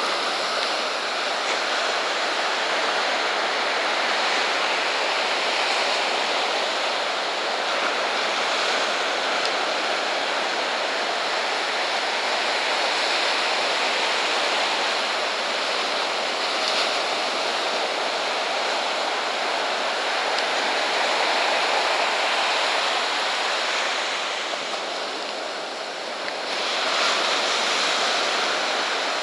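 Ocean surf breaking and washing on a beach: a steady rush of water, dipping briefly and swelling again near the end.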